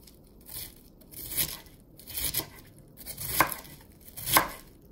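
Chef's knife slicing a wedge of red cabbage thinly on a wooden cutting board: five strokes about a second apart, each cut through the leaves ending in a knock of the blade on the board.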